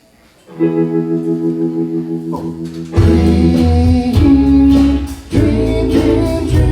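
Live band starting a song: a held chord rings out from about half a second in, then bass and drums come in about three seconds in.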